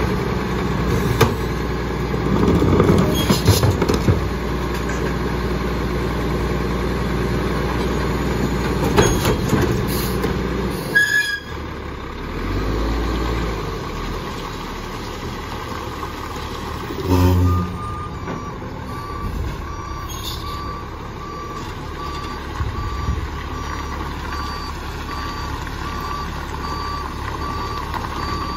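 CCC Labrie Expert split-body garbage truck running, with clanks and hydraulic noise as a cart is tipped into the hopper. A short loud burst comes about halfway through. From then on the truck's backup alarm beeps steadily as it reverses.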